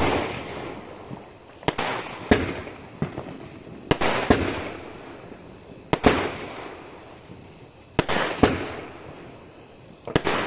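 Aerial firework shells bursting overhead in a string of sharp bangs, irregularly about one every second or two, each fading away in a long tail.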